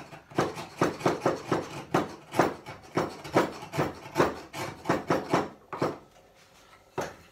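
A hand chisel paring wood on a corner bridle joint back to the gauge line: a quick run of short cuts, about three a second, that stops about six seconds in, then a single knock near the end.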